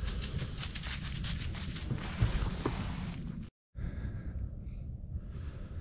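Wind buffeting a handheld camera's microphone outdoors: a steady low rumble under a rustling hiss. It drops out for a moment about three and a half seconds in, then goes on somewhat quieter.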